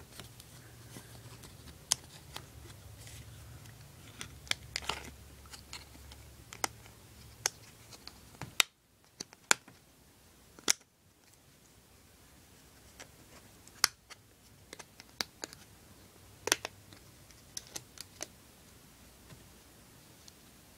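Irregular sharp clicks and snaps of a Griffin Survivor case's hard plastic shell and rubber layer being fitted back together by hand, around a dozen distinct clicks with quieter handling noise between.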